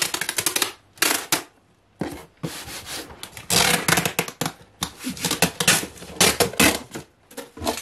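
Cardboard shipping box being folded and taped by hand: a string of short scraping and rubbing bursts from the cardboard flaps and packing tape, with brief pauses between them.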